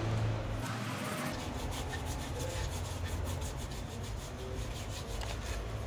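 A brush scrubbing in quick strokes, several a second, against the rubber inner liner of a car tyre, spreading repair cement over the area to be patched.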